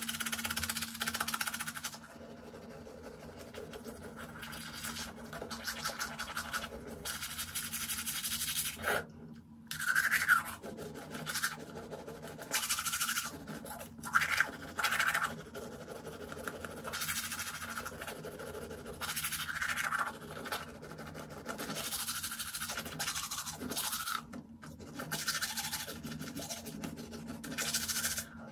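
Manual toothbrush scrubbing teeth, the bristles rasping in spells of quick strokes with brief pauses between them.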